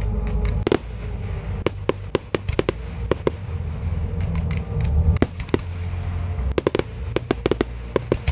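Fireworks display: aerial firework shells going off in a rapid, irregular series of sharp bangs, several in quick clusters, over a constant low rumble.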